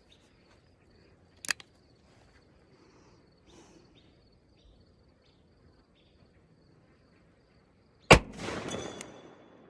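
A single .357 Magnum revolver shot from a Smith & Wesson 686 Plus, loud and sudden about eight seconds in, with a tail that echoes for about a second and a half. About a second and a half in there is a single sharp click, and a faint steady high insect tone runs underneath.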